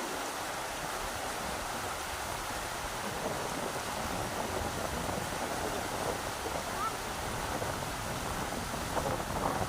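Rushing river water: a steady wash of flowing, splashing water with small swells.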